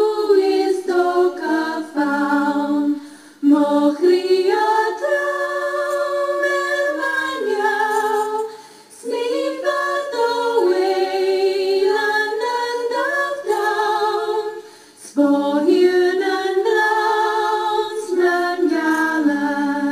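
Unaccompanied a cappella singing, long held notes in phrases with brief pauses between them, about three seconds, eight seconds and fifteen seconds in.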